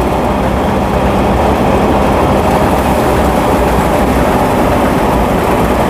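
Paddy thresher running steadily, driven off a Mahindra Arjun 555 DI tractor's diesel engine: a loud, even machine noise from the threshing drum and fan over the engine's low steady running, with threshed paddy grain pouring from the outlet into the trailer.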